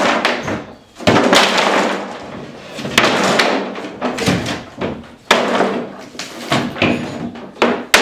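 Nailed-on wooden cabinet panels and trim being wrenched off a wall by hand: a series of sharp cracks and bangs, one every second or two, as the boards and nails give way.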